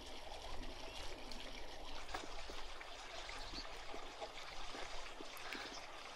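Steady rushing of a running stream, with scattered faint ticks over it.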